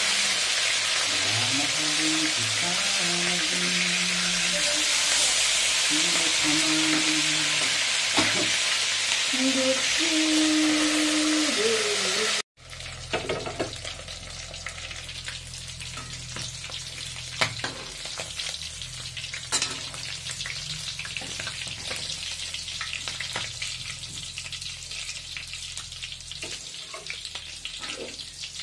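Dalagang bukid (redbelly yellowtail fusilier) frying in hot oil in a wok: a loud, steady sizzle for about the first twelve seconds. After a sudden break the sizzle is quieter, under a glass lid, with scattered crackles and pops of spitting oil.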